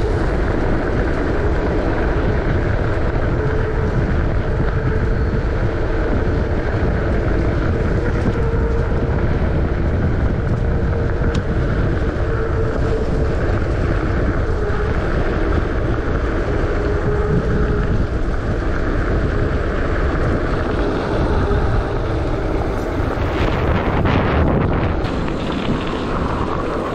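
Loud, steady wind rush over the microphone of a moving e-bike, mixed with rolling noise, with a few short knocks near the end.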